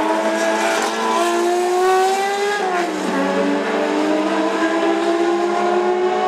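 BMW M1 Procar's M88/1 straight-six racing engine at full throttle as the car passes and pulls away. The pitch climbs, dips for an upshift about two and a half seconds in, then climbs again.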